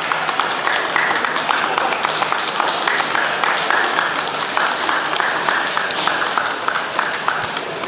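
Busy show-hall crowd: many people talking at once, with scattered hand-clapping.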